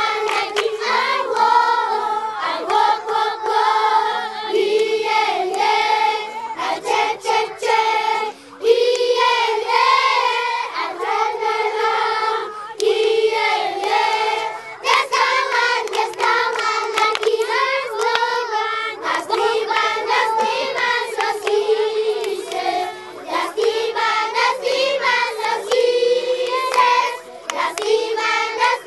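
A large group of children singing together in chorus, with hand claps running through the song.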